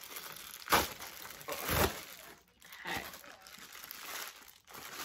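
Plastic Amazon mailer bag crinkling as it is pulled and torn open by hand, with two loud rustling rips, the first just under a second in and the second a second later.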